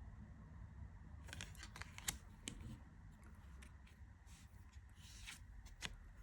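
Tarot cards being handled and turned over during a flipthrough: a faint, irregular run of clicks and light scrapes from the cardstock, starting about a second in.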